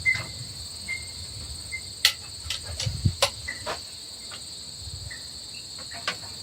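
Scattered sharp metal clinks and knocks, loudest about two and three seconds in, of a wrench working the head stud nuts on a Massey Ferguson 165's cylinder head. A steady high-pitched insect chorus runs behind.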